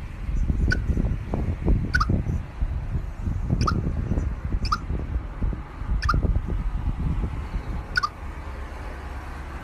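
A chipmunk with stuffed cheek pouches making short, slightly falling chirps, six of them spaced one to two seconds apart, over a low rumble.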